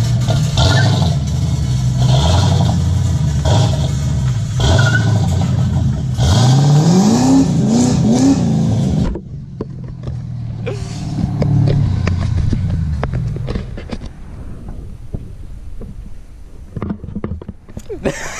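A 5.0-litre V8 swapped into a Nissan 240SX runs at high revs during a burnout, its exhaust hanging loose. About seven to eight seconds in it revs up three times in quick succession, then it drops off suddenly about nine seconds in to a lower engine sound that fades away.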